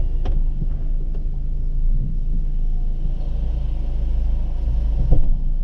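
Car engine running steadily, heard from inside the cabin as a low rumble, with a sharp click just after the start and a brief knock about five seconds in.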